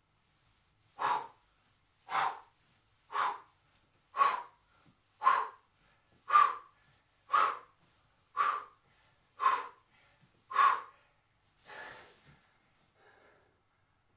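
A man's sharp, forceful breaths out during exercise, about one a second, ten in a row, then a weaker eleventh as he stops. Effortful breathing while holding a side plank.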